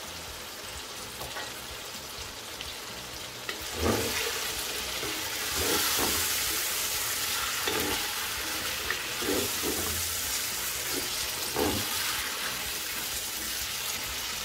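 Carrots and green beans sizzling in tomato sauce in a nonstick pan. From about four seconds in, a wooden spatula stirs and scrapes them in irregular strokes and the sizzle grows louder.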